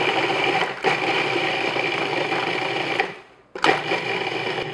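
Food processor motor running, its blade grinding digestive biscuits into fine crumbs. The sound cuts out briefly about three-quarters of the way through, then the processor is running again.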